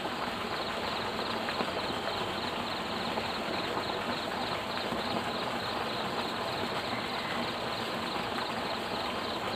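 Steady outdoor hiss, with a fast, regular high chirping of about five pulses a second running through it.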